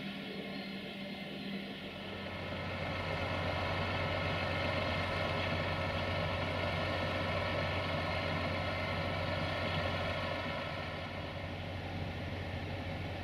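Diesel engine of a UAM 215 rail maintenance draisine running steadily with a low, even hum. It swells louder a couple of seconds in and eases a little near the end.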